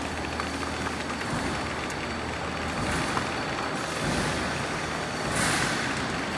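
Paper edgeboard edge-cutting machine running steadily, with a burst of hissing near the end.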